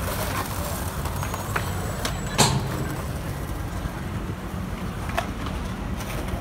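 Steady low rumble of city road traffic, with a single sharp clack about two and a half seconds in and a fainter one near the end.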